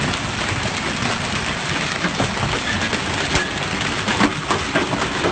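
Hailstorm with heavy rain: a dense steady hiss of falling rain and ice, broken by scattered sharp knocks of hailstones striking hard surfaces, a few louder hits late on.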